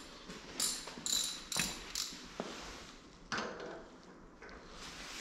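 Socket ratchet wrench clicking in short bursts as it turns a bolt on a bandsaw vise's movable jaw, about four strokes in the first two seconds and another a little after three seconds.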